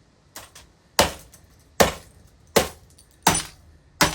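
Repeated heavy blows smashing a microwaved laptop: five sharp strikes about three-quarters of a second apart, each ringing briefly, after a couple of light clicks.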